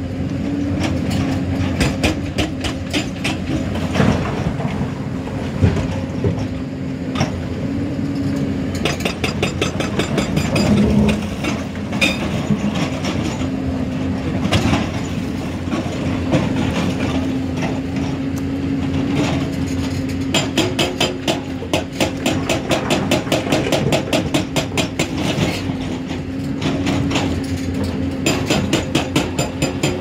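Hyundai crawler excavator's diesel engine working under load with a steady drone, while its steel bucket scrapes and clatters through broken quarry stone. A fast rhythmic rattle comes and goes in the latter part as the loaded bucket is lifted.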